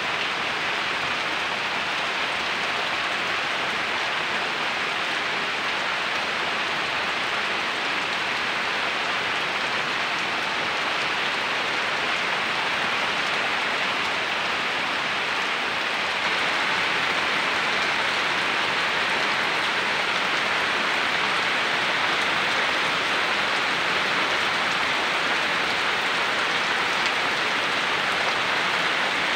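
Heavy rain falling steadily on palm fronds, foliage and waterlogged ground: a dense, even hiss with no breaks, a little louder from about halfway through.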